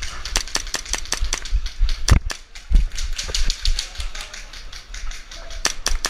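Airsoft rifle firing a long string of rapid shots, sharp clicks several a second. Low thuds from movement and wind on the microphone sit underneath.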